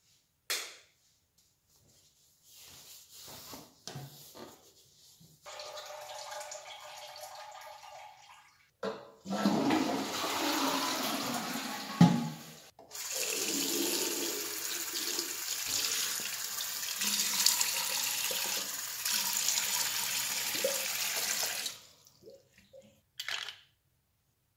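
A toilet flushing in a rush, then a steady hiss of running water for about eight seconds that cuts off suddenly.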